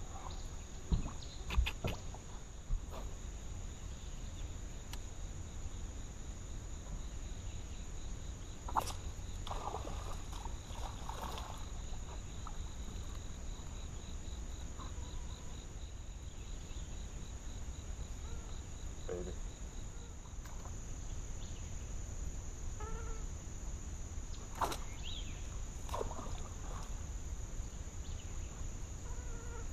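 Insects droning steadily at a high pitch, with a second insect's fast, even pulsing trill that stops about two-thirds of the way through. A few sharp knocks stand out in the first few seconds, with fainter ones later.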